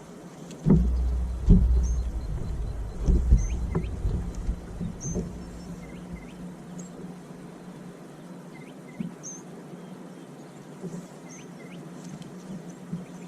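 A small bird calling in short, upward-flicking chirps, repeated about once a second. Several low thumps and knocks in the first four seconds, over a steady low hum.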